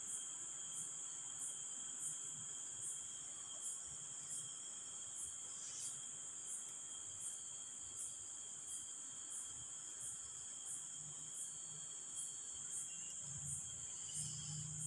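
Faint, high-pitched insect chirping, a steady trill that pulses about three times every two seconds.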